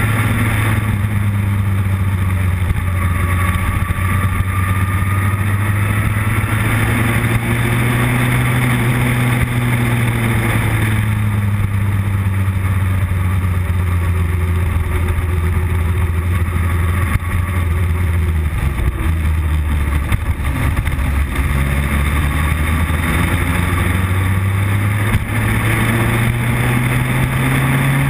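Motorcycle engine running under way, heard from on the bike, with a steady rush of wind and road noise. The engine note eases off and dips in the middle, then climbs steadily near the end as the bike accelerates.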